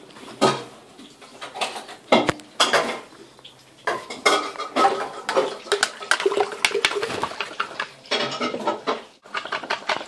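A spoon stirring honey into hot water in a pitcher, clinking against the sides. The clinks are scattered at first, then come quickly and steadily from about four seconds in, with a short break near the end.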